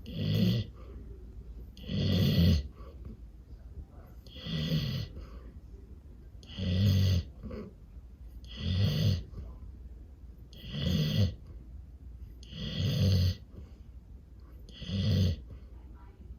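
Golden retriever snoring loudly in her sleep: one snore about every two seconds, eight in all, each lasting under a second.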